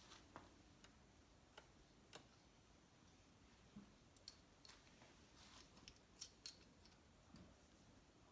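Scattered faint clicks and light taps of a reed block and small engine parts being handled and set in place on the intake manifold. The sharpest clicks come a little past the middle.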